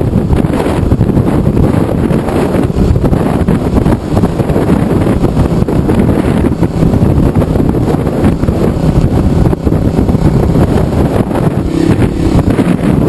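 Riding motorcycle with heavy wind buffeting on the microphone and the engine running steadily beneath it.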